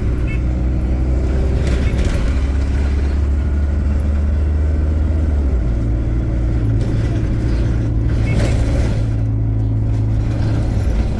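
Diesel bus engine and drivetrain heard on board, a steady low drone whose pitch steps up about halfway through and then holds.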